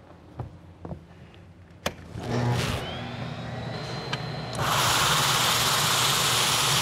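Hardwood floor buffer and its dust-extraction vacuum starting up. A few clicks, then about two seconds in a motor comes on with a low hum and a whine that rises and holds. Past the middle, a loud steady rushing noise sets in as the machine runs.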